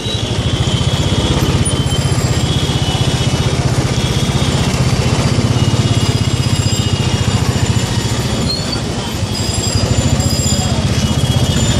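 Small motorbike engine running close by at low speed, a steady fast putter, while short horn beeps sound now and then from the surrounding traffic.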